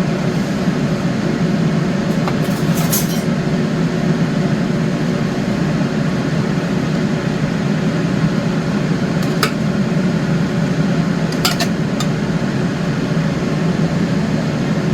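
Steady mechanical fan hum, like a kitchen appliance or ventilation fan, with a few light clinks of a spoon or utensils against dishes scattered through it.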